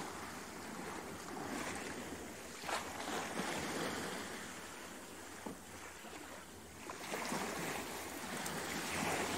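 Steady rushing-water noise, like surf, with a few brief soft knocks; the texture of the noise changes about seven seconds in.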